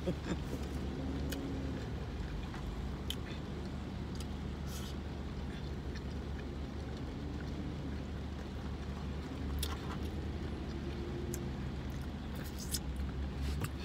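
Steady low hum of a car idling, heard inside the cabin, with quiet chewing and a few light clicks from handling food in a foil pan.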